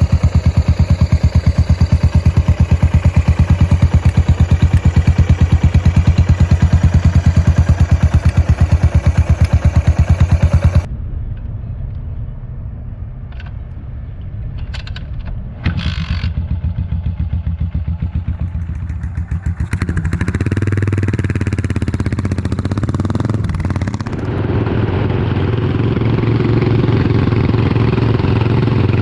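Yamaha SR400/500 single-cylinder four-stroke engine running through a stainless slip-on megaphone muffler, with an even, fast exhaust beat. About eleven seconds in the sound cuts abruptly to a quieter exhaust note with a few clicks, then grows louder again from about twenty seconds in.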